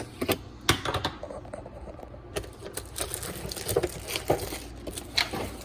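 Plastic wrap on a new wrench set being cut and pulled open: crinkling plastic with scattered sharp clicks and clacks.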